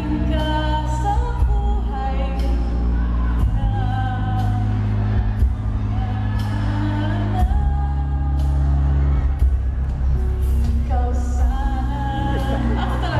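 A woman singing a pop song into a microphone over instrumental accompaniment with a steady beat.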